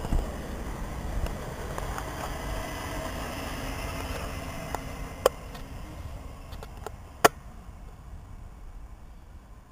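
A Siemens Desiro electric train running past and away along the track, its rumble fading steadily as it recedes. Two sharp clicks stand out about five and seven seconds in.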